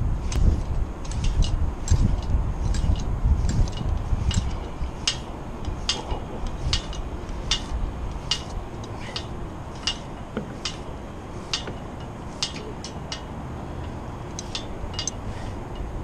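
Rope hauled hand over hand through pulley or ratchet rigging on a steel tower, the hardware clicking about twice a second. Wind rumbles on the microphone in the first few seconds.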